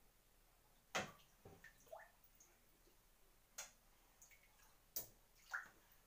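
Small water drips and splashes in a bathtub as a jointed lure is drawn through the water: about six short sharp ticks and plops, a couple with a quick rising pitch, over near silence.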